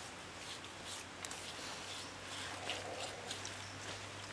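Faint handling sounds: soft ticks and rubbing as raw chicken wings are seasoned by hand on a wooden chopping block, over a low, steady background hiss.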